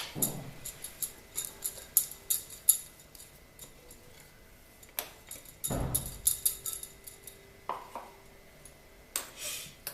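A metal spoon clinking quickly and repeatedly against a steel pot while stirring ground ginger into water, with a dull thump a little before six seconds in.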